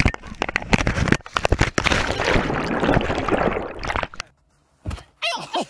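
Water splashing and rushing hard against a camera on a towed inflatable tube bouncing through a boat's wake, full of sharp slaps and spray. It cuts out suddenly about four seconds in.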